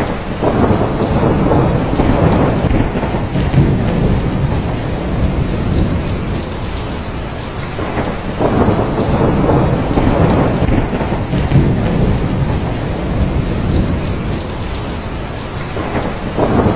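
Heavy rain falling steadily, with rolling thunder rumbling up about half a second in and again about halfway through, each rumble lasting several seconds.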